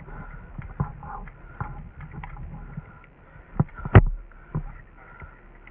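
Irregular knocks and rustling of a moving player's gear against the camera, with one sharp, loud knock about four seconds in.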